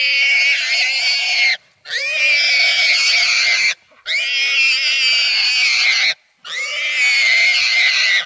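Wild hog squealing while it is caught and held down by dogs: four long, loud, high-pitched squeals with brief pauses for breath between them.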